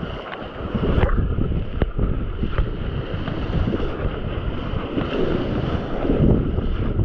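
Wind buffeting the microphone over waves at sea, a gusty low rumble, with a sharp knock about a second in and another shortly after.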